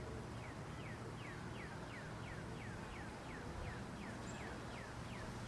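A bird calling a steady series of short falling notes, about three a second, over a low steady hum.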